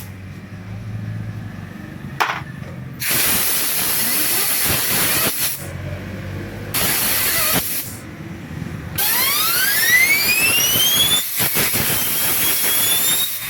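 Compressed-air blow gun blasting in hissing bursts: one short puff, then three long blasts with pauses between. The last blast is joined by a whistle rising in pitch.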